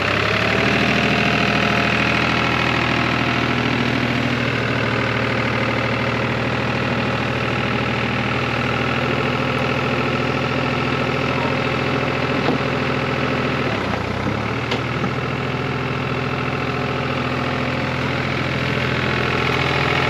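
Utility tractor's diesel engine running steadily under load as it drives out of mud while being winched, its speed dipping briefly about 14 seconds in and then recovering.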